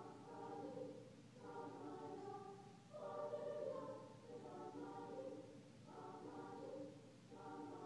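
Choir singing in harmony, heard from the audience seats of an auditorium, with a new phrase starting about every second and a half.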